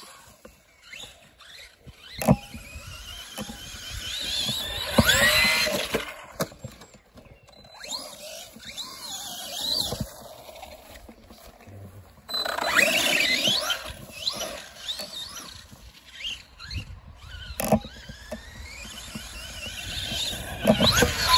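Electric 1/10-scale RC monster truck (an Arrma Senton rebuilt as a Big Rock) driving on grass. Its motor and drivetrain whine in bursts that rise and fall in pitch as it accelerates and slows, with a few sharp knocks in between.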